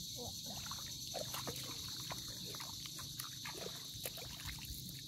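Soft wet tidal mud clicking and squelching in many small irregular ticks, under a steady high buzz of insects.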